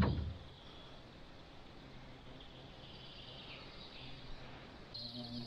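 Faint, quiet outdoor ambience on a lake, with a faint high call in the middle. Near the end a buzzing insect, such as a fly, comes close.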